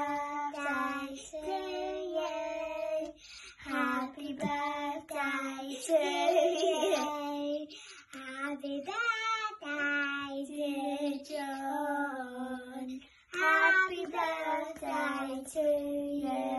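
Young girls singing a song together, held notes in short phrases with brief breaths between.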